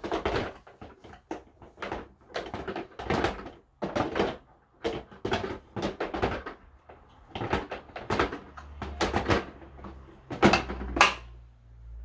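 The clear plastic water tank of a Vax carpet washer being handled and seated back on the machine: a string of hollow plastic knocks, clunks and rattles, the loudest pair near the end as it settles into place.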